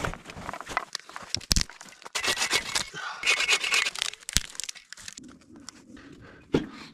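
Rustling and crinkling of fabric and gear as people shift about in a tent, with a few sharp knocks. The handling is busiest in the middle and quieter near the end.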